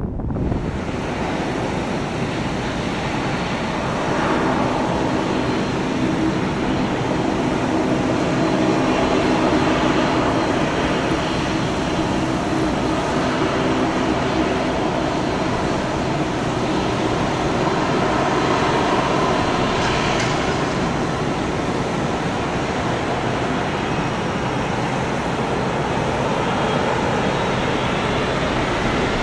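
Boeing 777's twin GE90 turbofan engines running at low thrust as the airliner rolls slowly along the runway: a steady jet rush with a low hum.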